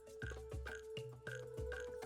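Background music with a steady beat and a held note.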